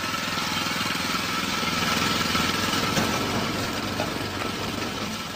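Small stationary engine running steadily at a fast, even beat, driving the belt and pulleys of a hoist that lifts spoil from the excavation shaft. A thin steady whine sits over the engine.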